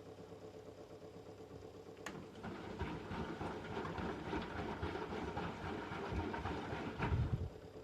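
1997 Merloni-built Eurotech EW 450 washing machine running in its rinse-and-spin stage, the motor humming and the drum churning unevenly. There is a click about two seconds in and a heavier thump near the end, after which it drops to a quieter hum.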